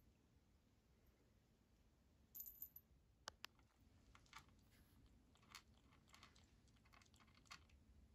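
A Ragdoll kitten eating dry kibble: quiet, irregular crunches and clicks through the second half, after a brief rattle a little over two seconds in.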